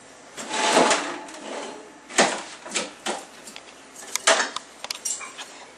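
Rummaging through an open refrigerator: containers and items shifted about, with a rustling shuffle near the start and a run of sharp knocks and clatters, the loudest about two seconds in and just after four seconds.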